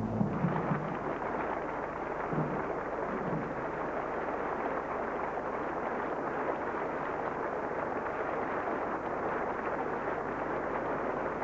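Large audience applauding: dense, steady clapping that starts as the song's last notes die away at the very beginning.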